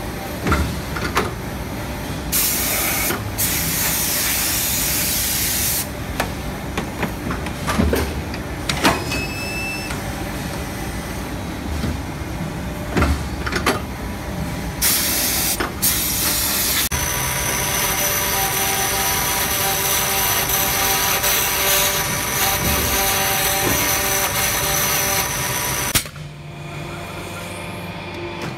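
Die-casting machine at work: two long, loud hissing blasts of air, metal knocks and clanks from the mould, then several seconds of steady machine hum with a constant whine.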